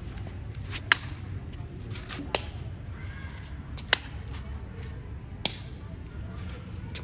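Shuttlecock being kicked back and forth in a Khmer sey rally: sharp single taps of a foot on the shuttlecock, about one every second and a half.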